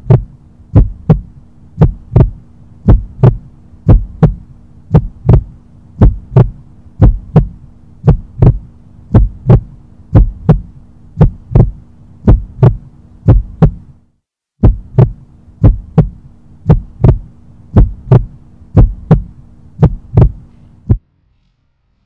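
Heartbeat sound effect: a steady lub-dub double beat about once a second over a low steady hum. It breaks off for a moment about 14 seconds in, resumes, and stops shortly before the end.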